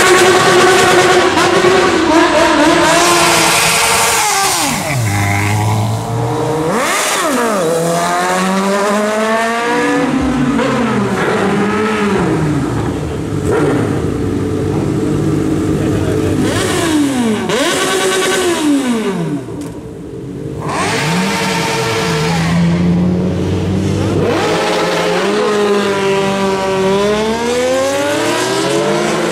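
Sport motorcycle engines revving hard and accelerating past one after another, their pitch climbing through the revs and dropping as each bike goes by. The engines are briefly quieter about twenty seconds in.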